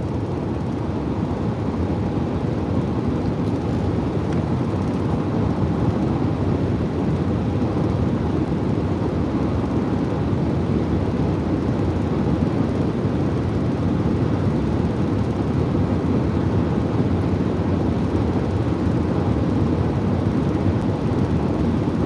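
Steady road and tyre noise of a car cruising at highway speed, heard from inside the cabin: a low, even rumble with no changes.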